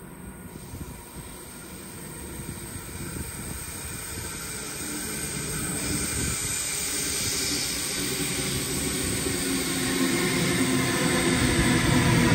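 Double-deck electric passenger train approaching through an underground tunnel: a rumble and rushing hiss that grow steadily louder as the train nears the platform.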